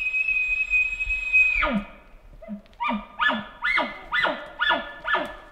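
Elk bugle blown on a hunter's bugle tube: a high whistled scream held, dropping away about one and a half seconds in, followed by a string of about seven short chuckles, roughly two a second, imitating a bull elk.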